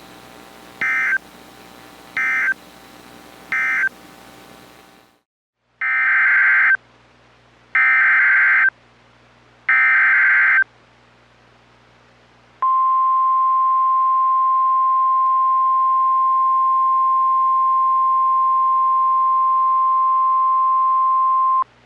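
Emergency Alert System signalling on a NOAA Weather Radio broadcast. It begins with three short digital end-of-message bursts closing the previous warning. After a brief gap come three one-second SAME header data bursts announcing the next warning, then a single steady 1050 Hz weather radio alert tone held for about nine seconds, which cuts off abruptly.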